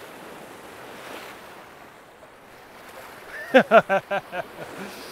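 Sea swell washing and breaking against rocks, a steady rushing surf. About three and a half seconds in, a man's voice cuts in with a few quick short syllables.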